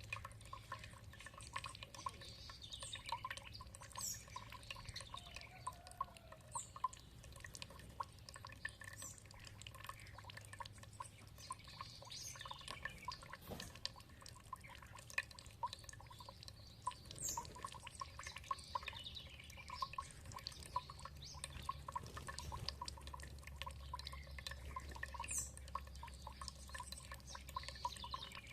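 Water dripping and trickling in a steady patter of small drops, with birds giving high, short chirps every few seconds.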